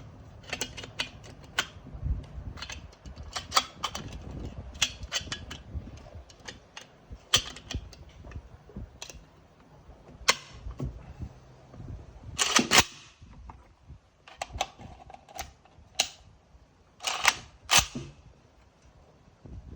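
Irregular sharp clicks and knocks, with three louder cracks that ring briefly, one about twelve seconds in and two close together about seventeen seconds in.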